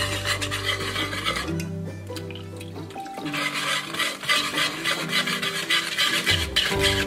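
Metal wire whisk scraping rapidly round a nonstick pot, beating a thick custard base and whisked constantly to keep lumps from forming. Background music plays underneath.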